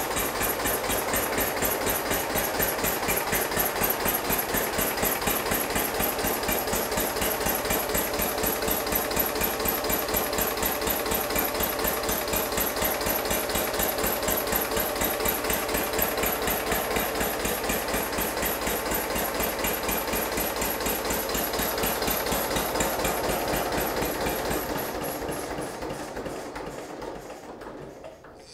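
Hanomag R16 tractor's diesel engine running with a steady, rapid knocking beat. The engine has been rebuilt with new pistons, liners and bearings and an overhauled injection pump, and it runs well. The sound fades away over the last few seconds.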